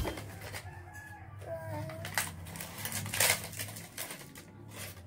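Cardboard charger box and plastic packaging being handled and opened, with soft rustles and a louder crinkle a little after three seconds. A bird calls faintly about a second in.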